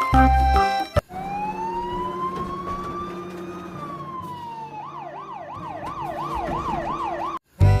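About a second of children's music, then a siren. It gives one slow wail that rises for a few seconds and falls, then switches to a fast warble going up and down about three times a second over a steady low hum. It cuts off near the end.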